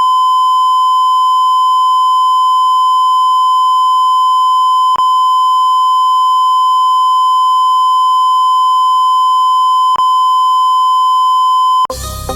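A loud, steady electronic beep tone near 1 kHz, held unbroken except for a tiny blip about every five seconds. It cuts off near the end as plucked-string background music begins.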